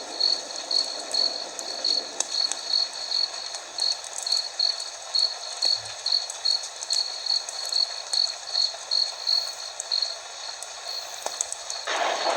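Cricket chirping steadily, about three chirps a second, over a soft hiss with faint crackles of a fire. A louder rushing noise comes in near the end.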